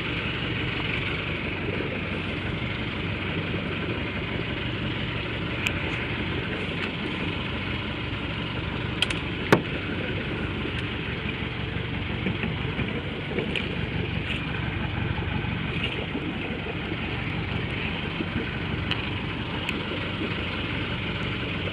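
A small fishing boat's engine idling steadily, with a few light clicks and knocks over it, the sharpest about nine and a half seconds in.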